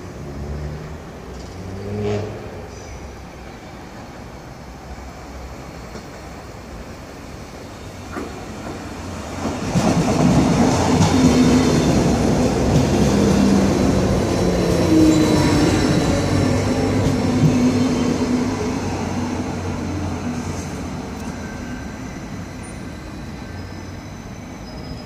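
Electric passenger train running past close along a station platform: wheel and rolling noise with a steady hum from the drive, swelling suddenly about ten seconds in, staying loud for several seconds, then slowly fading.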